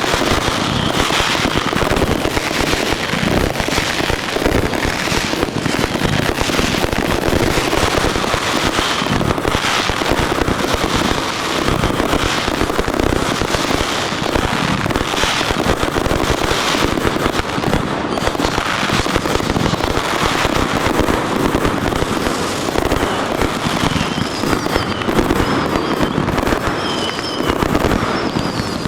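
Fireworks display in a dense finale-style barrage: a continuous rapid stream of bangs and crackling with no let-up.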